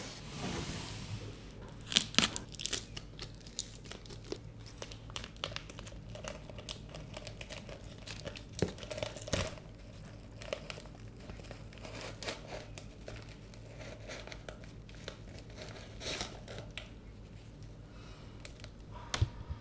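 Crinkling and crackling of plant-mail packaging being handled: a taped sleeve slid off a potted plant and the tissue paper around it. Irregular rustles run throughout, with a few louder crackles about two seconds in and again near the middle.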